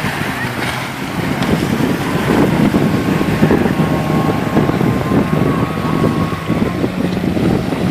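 Personal watercraft (jet ski) engine running under way, with wind buffeting the microphone; it grows louder about two seconds in.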